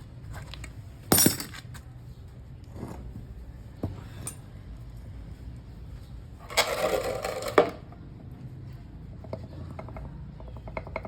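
Metal-on-metal clinks from hand tools and differential parts being worked on: one sharp clank about a second in, a few light clicks, then a rattle lasting about a second around the middle, with small ticks near the end.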